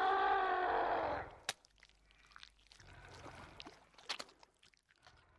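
Dinosaur roar sound effect: a long pitched roar that ends about a second in. A sharp click follows, then faint rustling with scattered clicks.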